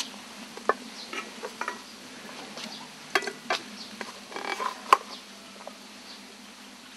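A rice paddle scraping and tapping against a metal rice-cooker pot as leftover cooked rice is scooped into an alms bowl: a string of short clicks and knocks, the sharpest about five seconds in, over a steady low hum.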